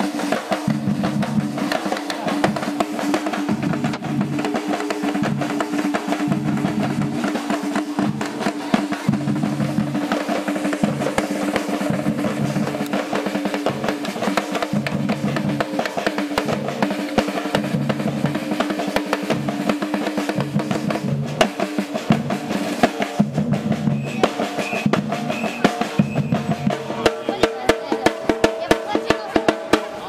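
Drums played in a fast, steady rhythm, with dense strokes over a low beat that recurs about every second and a half.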